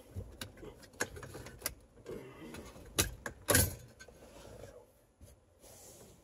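A metal under-dash support bracket being wiggled and pulled free, giving a series of clicks, knocks and rattles, with the loudest knocks a little past halfway.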